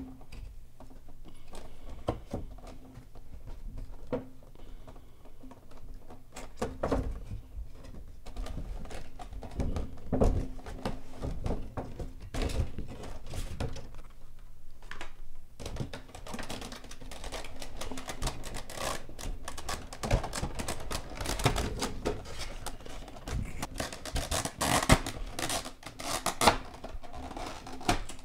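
Cardboard box and clear plastic packaging handled by hand: irregular knocks, clicks and thunks, with plastic crinkling and clattering getting busier in the second half.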